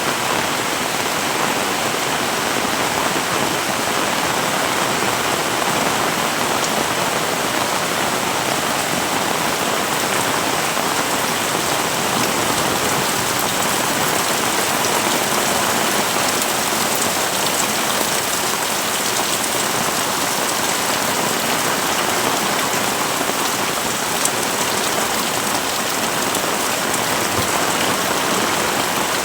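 Heavy rain falling steadily: a dense, even hiss of drops hitting the ground and surfaces, with no let-up.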